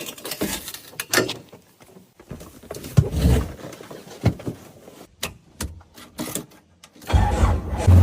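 Irregular clicks, knocks and rustles of objects being handled. About seven seconds in, a low steady motor hum starts up.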